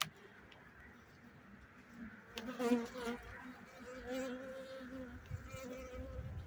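Honeybees buzzing at an open hive, with a bee flying close by from about two seconds in, loudest near three seconds. A few clicks come from a metal hive tool prying at the wooden frames.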